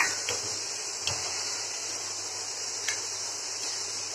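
A few sharp clinks of a steel spoon against a metal pan as boiled tomatoes and dried red chillies are scooped out of the hot water, over a steady hiss.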